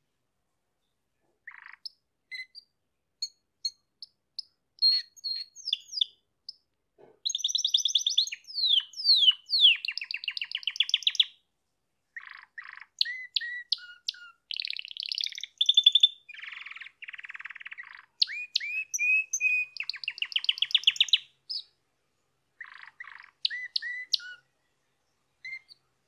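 Domestic canary singing: a few single chirps, then long phrases of fast trills and rapidly repeated notes with short breaks between them, thinning to a few chirps near the end.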